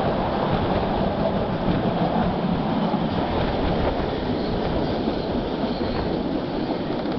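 Vitória-Minas railway passenger train running along the track, heard from an open carriage window: a steady rumble of wheels on rail.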